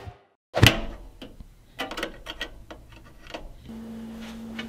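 A cable's plastic plug being pushed into the back of a trackball: a loud knock, then a run of small irregular clicks and taps. About three and a half seconds in, a steady low hum starts and runs under the last few clicks.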